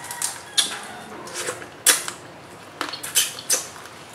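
Close-up eating sounds from crab and shrimp eaten by hand: about half a dozen sharp, wet clicks and crackles at irregular intervals, the loudest about two seconds in.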